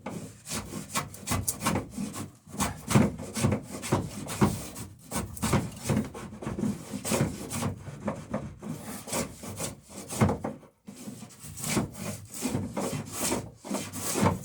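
Low angle block plane taking repeated quick strokes along the edge of a wooden boat plank, about two strokes a second with a couple of short pauses, truing up a bevel where the saw wandered off the line.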